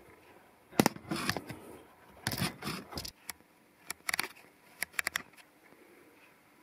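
Irregular sharp clicks and light metallic knocks in small clusters, with quiet gaps between: handling of the drill press and its parts.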